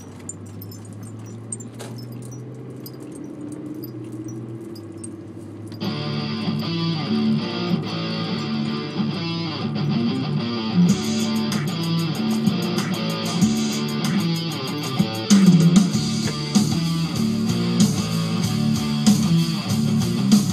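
Low steady hum of the moving car at first, then guitar music with bass starts abruptly about six seconds in and carries on.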